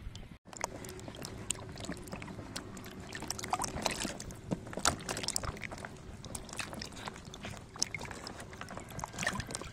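Hands sloshing and rubbing green bell peppers in a plastic basin of water: irregular splashes, drips and light knocks of the peppers against each other and the tub.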